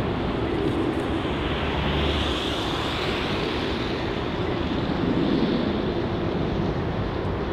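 The four LF507 turbofans of an Avro RJ85 on final approach, making a steady jet rumble with a faint high whine that swells in the middle.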